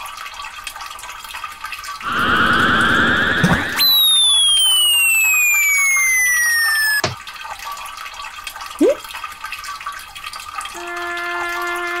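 Cartoon sound effects over a running stream: a warbling buzz, then a long falling whistle lasting about three seconds that cuts off suddenly, a short rising chirp, and held steady notes starting near the end.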